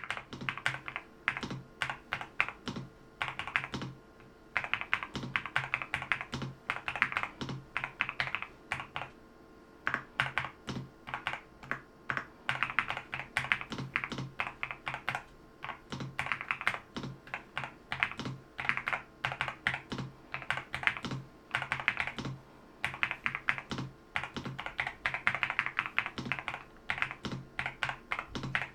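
NuPhy Halo65 V2 wireless mechanical keyboard being typed on: rapid key clicks in runs of a second or two, broken by short pauses.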